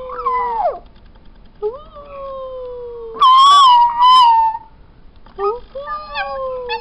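New Guinea singing dog puppy howling: about four drawn-out howls, each jumping up in pitch and then sliding slowly down. The loudest howl, in the middle, wavers, and the last one warbles.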